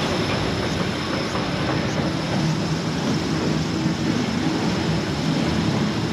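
Electric people-mover train of the DisneySea Electric Railway running along its elevated track: a steady rumble of wheels and motor with a thin high whine.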